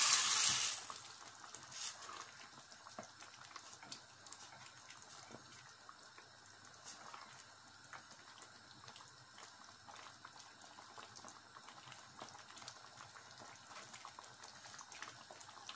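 Cooked lentil dal poured into a steel pan, splashing loudly for about the first second, then the dal simmering with faint bubbling and the occasional scrape of a wooden spoon stirring it.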